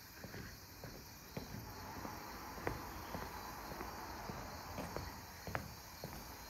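Footsteps on the wooden plank floor of a covered bridge: irregular hollow knocks about once a second, two of them louder, over a faint steady background hiss.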